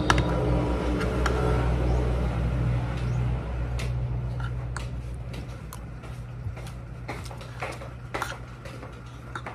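Spoon and fork clinking and scraping against a plate in a series of sharp, irregular clicks. Under them runs a steady low hum that grows fainter after about three seconds.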